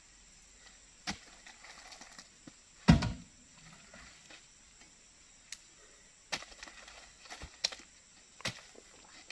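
Oil palm fruit bunches being lifted with a hooked pole and dropped onto a loaded dump truck: scattered knocks and thuds a second or so apart, the heaviest about three seconds in.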